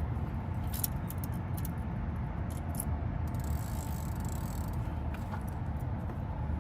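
Steady low rumble of distant road traffic, with a few light clicks and rattles of fishing tackle being handled about one to three seconds in.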